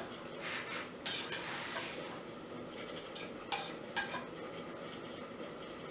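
Metal spoon scraping and clinking against a stainless steel cooking pot as the cooking liquid is spooned out. There are two sharp, ringing clinks about three and a half and four seconds in.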